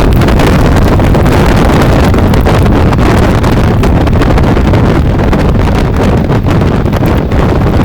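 Loud, steady wind rush buffeting the microphone on a moving bike.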